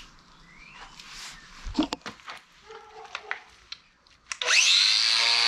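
Angle grinder with a 120-grit flap disc switched on about four seconds in, whining up to speed and then running steadily and loudly. Before that, a few light clicks and knocks of bolts and tools being handled.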